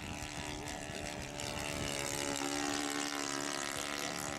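Radio-controlled model biplane's engine droning steadily as it makes a low pass, a little louder as it goes by, with wind rumbling on the microphone.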